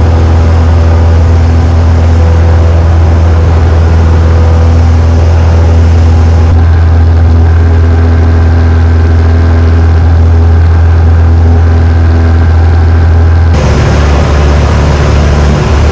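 Small plane's piston engine and propeller droning steadily in flight, heard inside the cabin. The drone's tone shifts about three-quarters of the way through.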